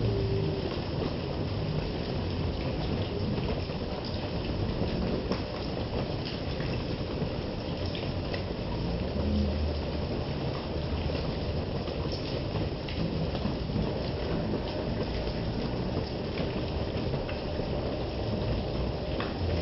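Heavy rain falling steadily on muddy ground and puddles, an even hiss with a low rumble beneath and scattered sharper drip ticks.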